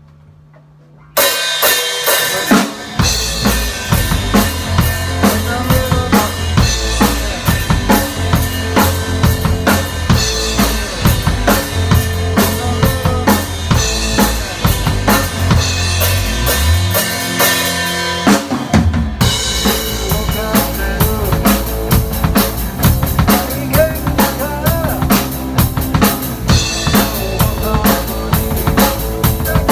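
Recorded music with a full drum kit (kick, snare and rimshots) over a heavy bass line, starting abruptly about a second in. It drops out briefly past the middle, then comes back in.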